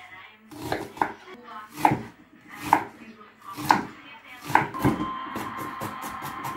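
Chef's knife chopping a raw onion on a wooden cutting board, one sharp knock a little under a second apart. About five seconds in, a steady tone with quick light ticks comes in under the chopping.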